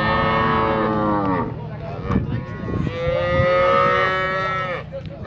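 Zebu cattle mooing: two long, drawn-out calls, the first at the start and the second about halfway through, each dropping in pitch as it ends.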